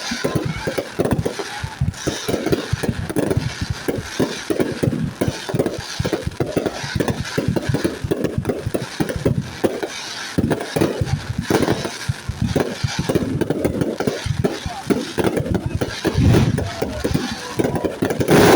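Fireworks going off in a rapid, continuous run of crackling pops and bangs, with a deeper rumble and a louder bang near the end.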